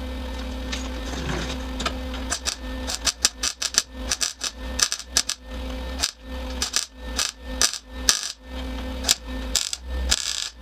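Rapid, irregular metallic clicking and clinking, starting about two seconds in, over a steady low electrical hum.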